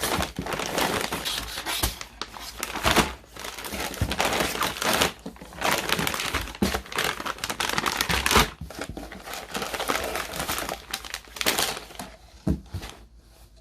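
Packaging of dog food and treats crinkling and rustling as it is handled and unpacked, in irregular bursts, stopping near the end.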